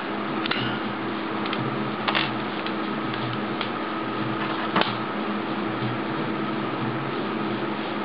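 A few sharp metallic clicks as a key ring and lock-picking tools are set down on a desk mat, the loudest nearly five seconds in, over a steady background hum.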